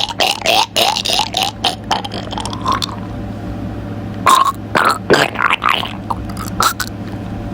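A person's voice making a rapid string of short, rising vocal noises, about three a second, for roughly three seconds, then a few isolated short noises over a steady low hum.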